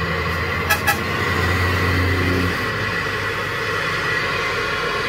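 A vehicle driving on the road, heard from inside the cab: engine and road noise, with a steady low drone that stops about two and a half seconds in.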